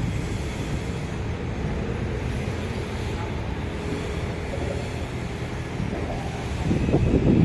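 An engine running steadily with a low rumble, swelling a little near the end.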